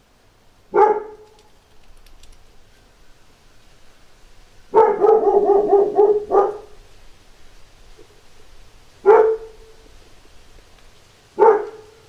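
A dog barking: one bark about a second in, a rapid string of barks around five seconds in, then two more single barks a couple of seconds apart near the end.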